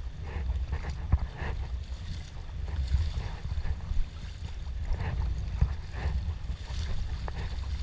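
Sea kayak paddle strokes splashing in the water at a steady rhythm, with wind rumbling on the action camera's microphone.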